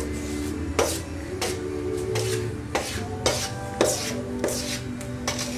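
Background music with sustained notes over regular rasping scrapes, about two a second, fitting a spoon scraping wet casting plaster from a plastic mixing bowl into a volcano mold.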